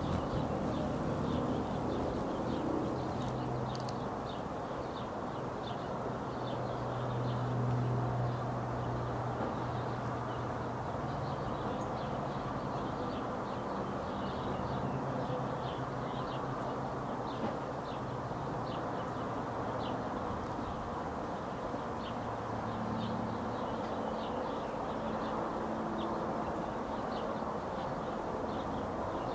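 Outdoor background ambience: a steady low hum under an even hiss, with faint short high chirps repeating about once or twice a second.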